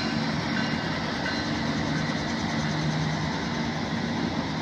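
CSX diesel locomotives passing, a steady low engine hum over the continuous noise of wheels rolling on the rails.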